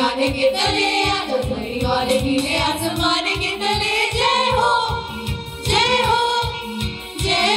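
A group of girls singing together into microphones, accompanied by an electronic keyboard with a steady beat of about four pulses a second.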